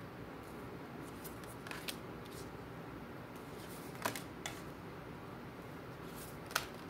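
Tarot cards being laid out on a table: a few soft taps and clicks as cards are set down, over a faint steady room hum.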